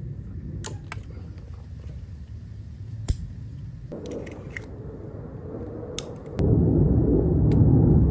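Plastic wiring-harness connectors of a TC500 motor controller being pushed together by hand, giving several sharp clicks as they latch, the loudest about three seconds in; the click is the sign of a secure, fully seated connection. A louder steady low noise comes in abruptly about two thirds of the way through.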